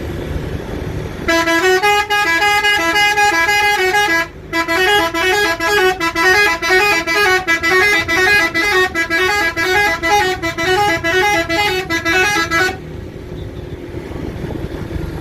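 Basuri telolet horn on a bus playing a rapid, stepping multi-note melody for about eleven seconds, with a short break about three seconds in. An engine rumbles underneath.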